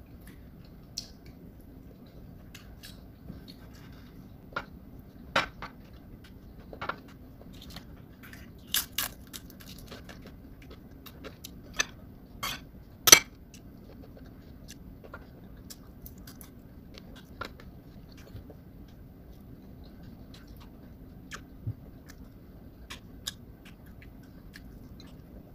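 Eating at a table: scattered clicks and taps of a spoon and fingers on ceramic plates, with some chewing, the loudest clatter about 13 seconds in, over a faint steady low hum.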